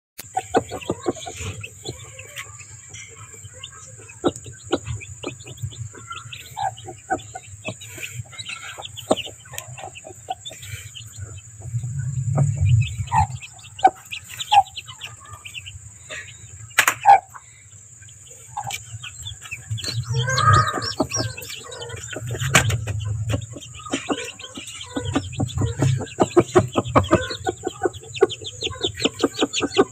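A sitting hen on her nest clucking low, with newly hatched chicks peeping rapidly and continuously, the peeping thickest near the end.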